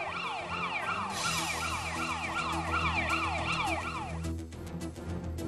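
Studio siren sound effect: a fast wailing whoop that falls in pitch over and over, about three times a second, over a steady background music bed. It cuts off about four seconds in, and a rapid ticking takes over near the end.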